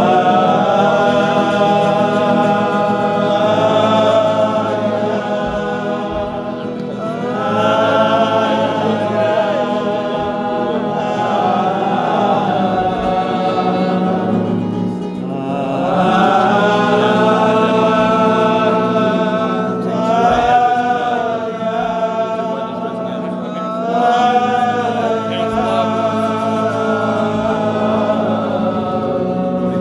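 A group singing a slow, melodic Jewish niggun together in long held phrases that swell and fade every few seconds, over a steady low sustained accompaniment.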